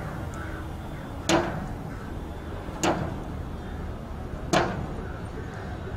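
Long-handled hammer striking a wooden beam, three heavy blows about a second and a half apart, each with a short ring.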